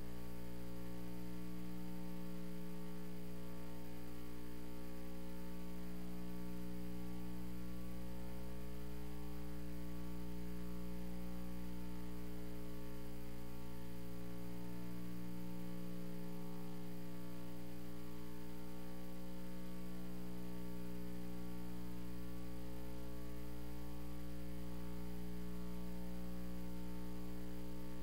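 Steady electrical mains hum, a constant buzz with several fixed tones and no other sound.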